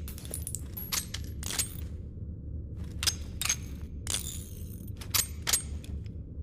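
Revolver being handled between shots: a string of light, irregular metal clicks and clinks from its mechanism and cartridges, as when it is reloaded.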